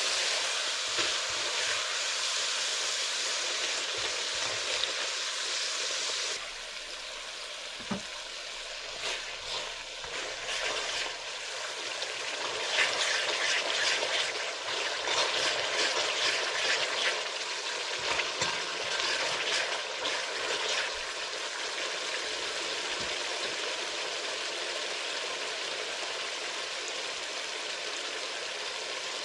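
Curry paste, green seasoning and onions sizzling in hot oil in a karahi: a steady frying hiss that drops in level about six seconds in. Through the middle stretch a spoon scrapes and clicks against the pan as the mixture is stirred.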